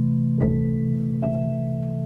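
Music: sustained held chords, with new notes coming in about half a second in and again just past the middle.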